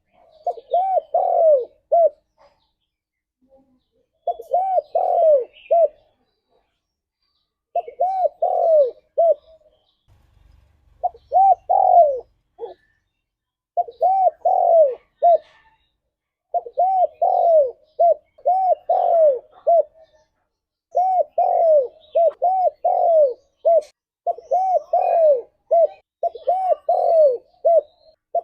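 Spotted dove (tekukur) cooing: repeated phrases of several arching coos, one phrase every two to three seconds, coming closer together in the second half.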